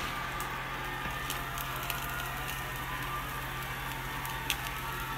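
Beyond Meat burger patty sizzling steadily in a frying pan, with a few faint pops.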